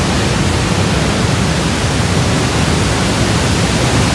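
Niagara's Horseshoe Falls pouring down just outside a rock tunnel portal behind the falls: a loud, steady rush of falling water, heaviest in the low end.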